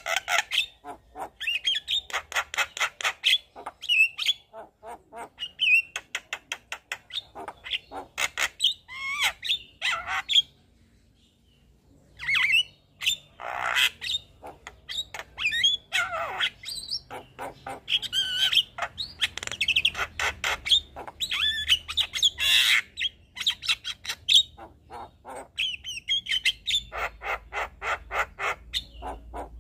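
Javan myna singing a long, varied song of rapid harsh rattling notes mixed with whistled phrases. The song breaks off briefly about ten seconds in, then resumes.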